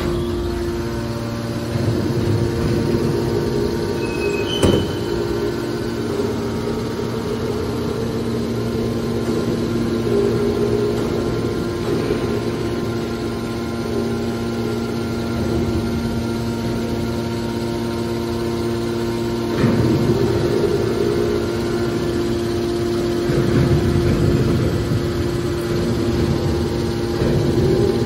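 Hydraulic power unit of a metal baler running: an electric motor driving a hydraulic piston pump with a steady hum. A sharp click comes about five seconds in, and the noise swells louder a few times in the second half.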